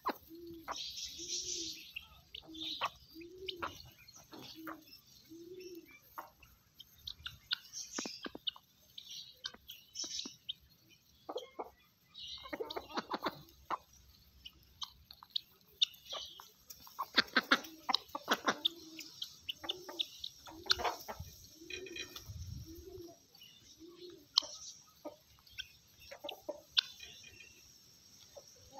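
Domestic hen clucking in an even series of short low clucks, about one every three-quarters of a second, which pauses for a while and then starts again. Sharp clicks and high chirps sound in the background.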